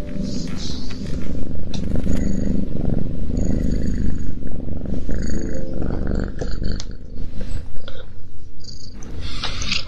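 Domestic cat purring steadily, a continuous low rumble, with a few short clicks near the end.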